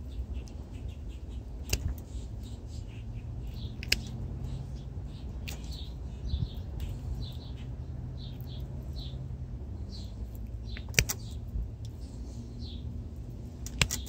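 Hand pliers working on thin e-bike wiring, giving a few sharp clicks several seconds apart. Small birds chirp in the background.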